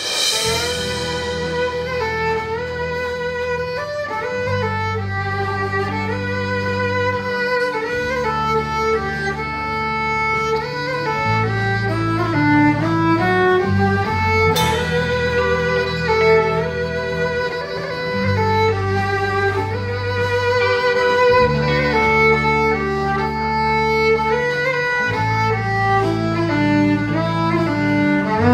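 Fiddle solo played live with a band: a fast, continuously moving melody bowed over long, sustained low bass notes. A cymbal crash lands at the start and another about halfway through.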